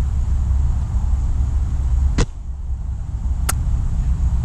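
Silverback SRS spring-powered bullpup airsoft sniper rifle firing a single shot about two seconds in, a sharp crack over a steady low rumble, with a second, thinner click about a second later.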